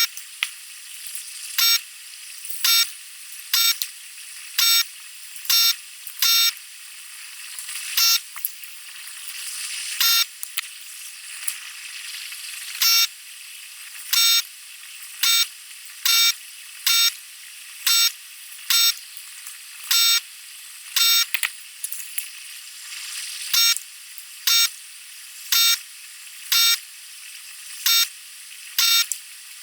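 A series of short electronic beeps, roughly one a second and slightly uneven, over a steady crackling hiss.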